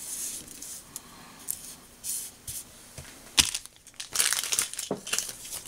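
Crinkling and rustling with scattered light clicks as small things are handled on a workbench, including a sharp click about halfway through and a quick run of clicks near the end.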